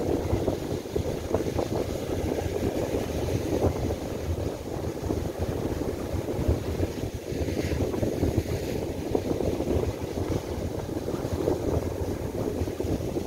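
Gusty wind buffeting the microphone, a fluctuating low rumble, over rough surf breaking on a sand beach.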